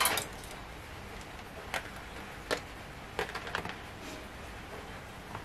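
Light, scattered clicks and taps of small high-power LEDs being picked up and set down on an aluminium LED circuit strip, about half a dozen over a faint steady background.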